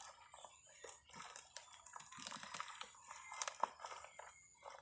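Potting soil and sweet potato roots being dug through by hand in a large pot: irregular crunching and rustling with scattered small clicks, a few sharper ones about three and a half seconds in.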